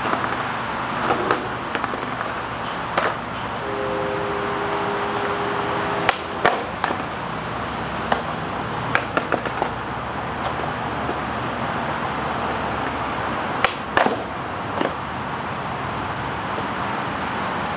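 Skateboard clacking on a concrete sidewalk during kickflip attempts: sharp wooden clacks of the tail popping and the deck and wheels landing, coming in small clusters, over a steady background hiss.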